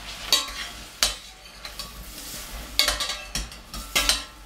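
A metal utensil stirring cooked broad beans in a stainless steel saucepan, clinking and scraping against the pan with short ringing knocks, several in quick succession near the end.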